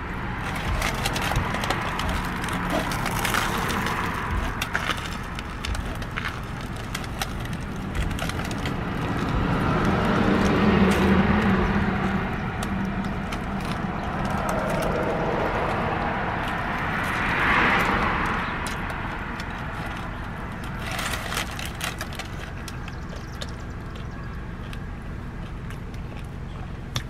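Close-up chewing of a crusty banh mi baguette, with small crackling crunches of the bread crust. Under it runs a steady background noise that swells about a third of the way in and again past the middle.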